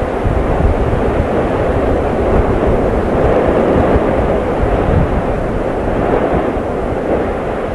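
Continuous deep rumble of a volcanic eruption, an even, unbroken noise with no distinct blasts.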